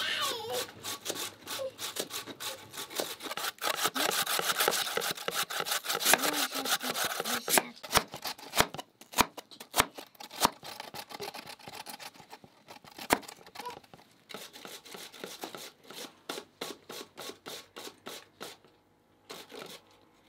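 Raw potatoes being grated by hand on metal graters, with fast, continuous rasping strokes. About eight seconds in come sharp separate knocks of a knife chopping potato on a wooden board, followed by lighter, rhythmic scraping strokes.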